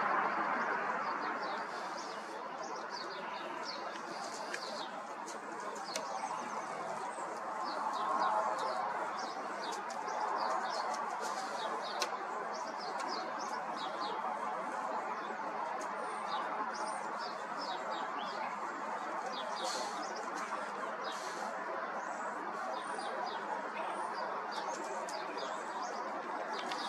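Small birds chirping repeatedly in quick short calls over a steady background rush.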